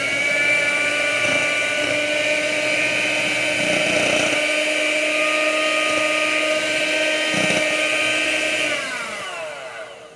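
Electric hand mixer running with its beaters in a bowl of cookie mix, a steady motor whine, then falling in pitch and winding down as it is switched off near the end.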